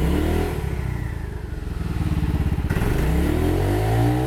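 Yamaha Majesty 250 scooter's single-cylinder four-stroke engine revved twice from idle: the revs climb quickly just at the start, drop back, then climb again about three seconds in and fall near the end. It revs up freely, showing good throttle response.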